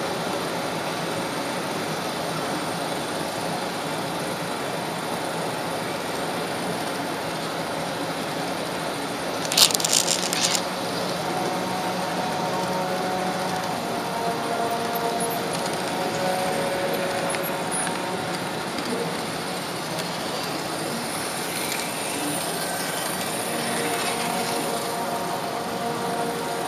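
Model train running along the track, heard from on board: a steady rolling rush of the wheels and motor, with a brief burst of clicking clatter about ten seconds in.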